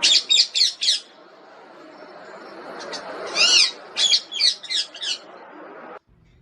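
Pet parrot squawking: a quick run of four short, harsh calls, a longer arching call about three seconds in, then another quick run of four.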